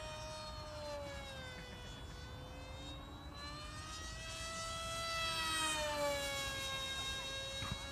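Multiplex FunJet RC jet-style plane's electric motor and pusher propeller whining at high speed. The pitch sinks, climbs again, then drops sharply as the plane passes close about six seconds in, where it is loudest.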